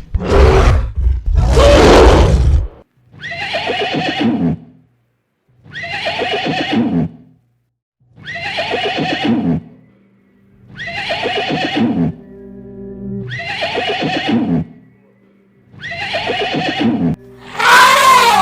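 An animal calling over and over: two loud sounds at the start, then a string of similar calls, each about a second and a half long, coming every two seconds or so, over faint background music.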